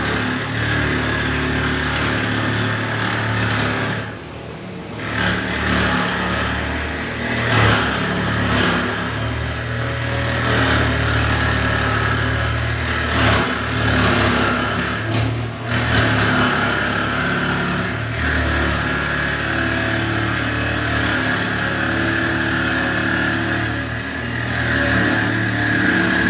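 An engine running steadily, with its speed and loudness shifting a few times and dipping briefly about four seconds in and again past the middle.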